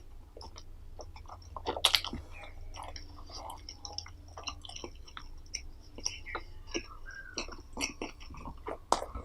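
Close-miked chewing and mouth sounds of a person eating: irregular wet smacks and clicks, with a louder bite about two seconds in.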